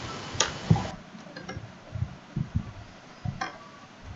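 Computer keyboard being typed on: a handful of short, irregular key clicks and taps.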